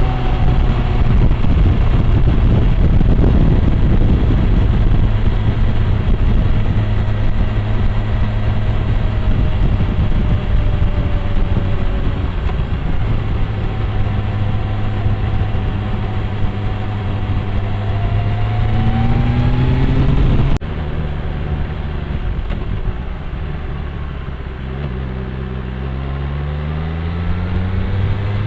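BMW M1000R inline-four engine running under way, heard through a bike-mounted dashcam's microphone with wind and road noise; the revs climb shortly before the sound cuts off abruptly to a quieter stretch, where the revs rise again near the end.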